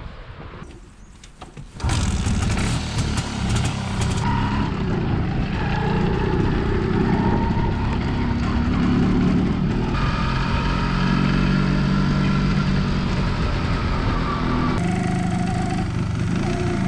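Single-cylinder two-stroke engine of a 1988 MZ ETZ 250 motorcycle running under way. It comes in suddenly about two seconds in, and its note rises and drops as it pulls through the gears.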